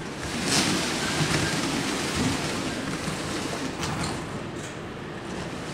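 Model diesel locomotives and freight cars running on a model railroad track: a steady rumble and rattle of motors and wheels, with a few sharp clicks.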